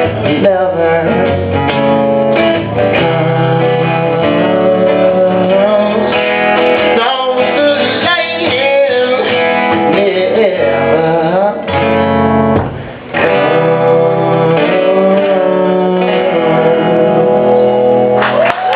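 Guitar played live, strummed and picked in a steady flow of chords and notes, with a short break about two-thirds of the way through.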